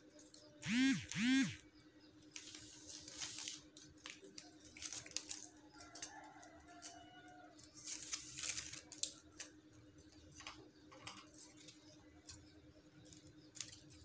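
Plastic packing strap being handled and cut with scissors: scattered rustling and snipping sounds over a steady low hum. About a second in, two short rising-and-falling tones are the loudest sounds.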